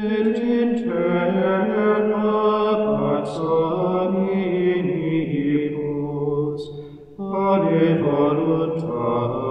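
Male voices chanting in slow, long-held notes. The phrase breaks off briefly about seven seconds in, then the chanting resumes.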